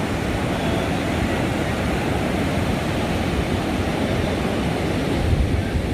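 Steady rush of ocean surf on a beach, with wind buffeting the microphone.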